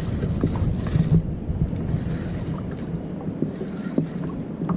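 Wind rumbling on the camera microphone over sea water lapping at a kayak, with a brief hiss in the first second and a few faint clicks.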